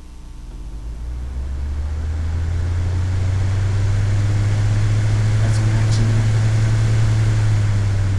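Airflow from a 48-watt Blizzard desk fan blowing on the microphone, a low wind noise. It grows over the first three seconds as the fan speeds up under a sewing-machine rheostat pedal, then holds steady at high speed.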